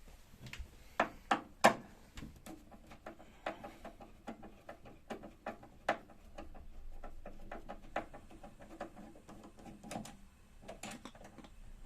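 Screwdriver working a screw out of a refrigerator's door fitting: an irregular run of small clicks and taps of metal and plastic, with three sharper knocks about a second in.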